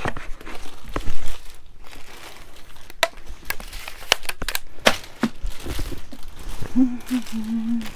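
Packaging crinkling and rustling as items are handled and pulled from a box, with many scattered sharp crackles.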